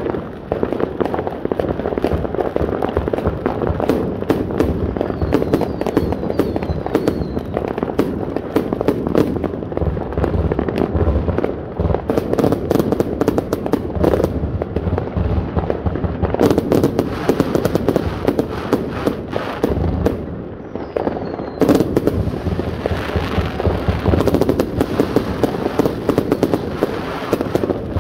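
The Paranoid firework going off: a dense, continuous barrage of bangs, pops and crackle from many aerial shots bursting. There are a few short falling whistles about five to seven seconds in and again about twenty seconds in, and a brief lull just before the second.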